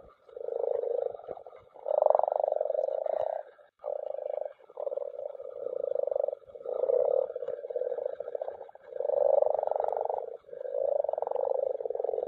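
A chorus of common frogs (Rana temporaria) croaking at spawning, in overlapping bouts of a second or two that follow one another with hardly a break.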